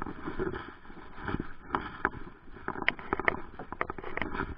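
Water lapping and slapping against the hull of a small boat on open sea, with irregular light knocks and clicks.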